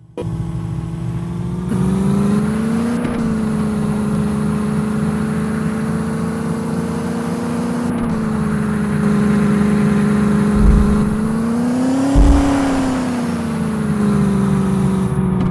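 Mahindra Thar's engine running at a steady pitch, revving up briefly about three seconds in and again near twelve seconds in. Two short low thumps come just before the second rise.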